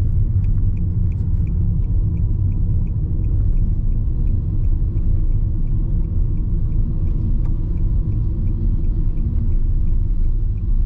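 A car driving, its low road and engine rumble heard from inside the cabin, with the indicator clicking steadily about three times a second.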